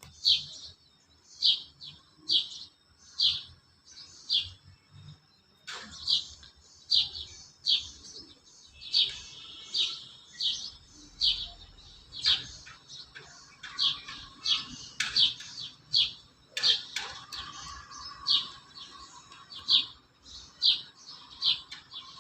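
A bird chirping over and over, a sharp high chirp roughly once a second.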